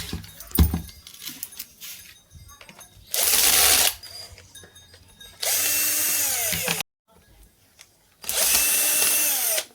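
DYK 1150W angle grinder switched on in three short bursts, winding down with a falling whine after each. It is running with a broken bearing that lets the armature rub against the field.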